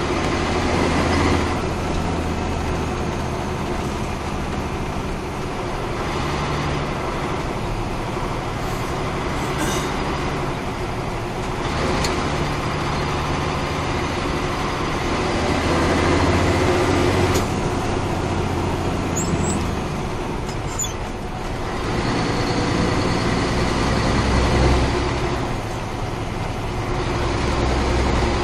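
Caterpillar 3406 inline-six diesel in a 1994 Ford L9000 truck running under way down a farm lane, its engine note rising and falling several times as the revs change.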